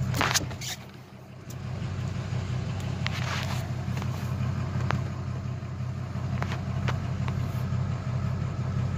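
A turbo-diesel pickup truck's engine running at a steady idle, heard from inside the cab, briefly quieter about a second in. A few light clicks and knocks sound over it.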